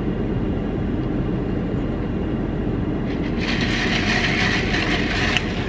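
Steady low rumble inside a stopped car. About three and a half seconds in, a hiss joins it for about two seconds.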